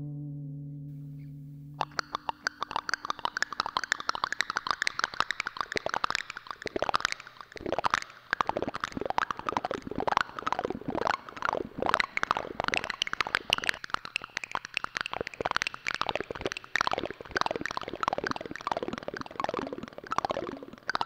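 A held music note dies away over the first two seconds. Then a dense, irregular stream of quick clicks and pops follows, several every second.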